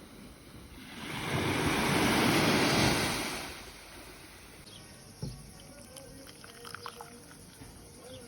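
A sea wave breaking and washing up the shore: a rush of surf that swells over about a second, holds, and dies away about three and a half seconds in. After it comes a quieter background with a few faint clicks.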